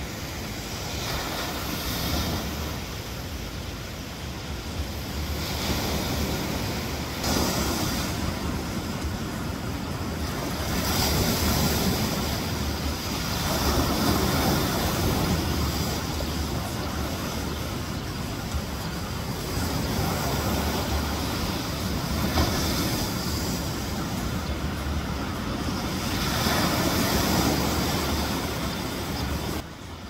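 Ocean surf breaking and washing up onto a sandy beach, a steady rush that swells with each wave every few seconds and eases between them.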